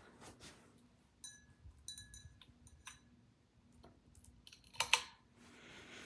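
Modified Litex Telluride ceiling fan running with a faint steady hum. A scatter of light, ringing ticks and clicks comes about a second in, and one louder sharp click follows near five seconds.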